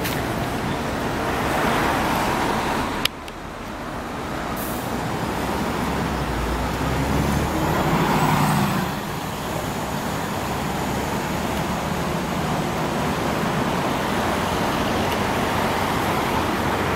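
Diesel engine of a Scania OmniCity double-decker bus moving off and passing close by, growing louder to a peak about eight seconds in, then dropping back to steady road traffic noise. A sharp click about three seconds in.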